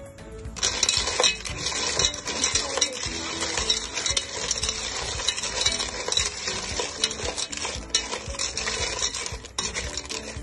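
Cockle shells clattering against each other and the stainless steel pot as they are stirred with a metal spoon, with a sizzle under them. The clattering starts about half a second in and keeps up in quick, uneven clicks.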